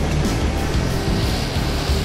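Background music laid over the steady running noise of a Korean Aerospace KT-1B Wong Bee turboprop trainer taxiing with its propeller turning.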